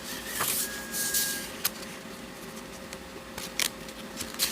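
Coloring book pages being turned and handled: a few short paper swishes in the first second or so, then several sharp clicks and taps.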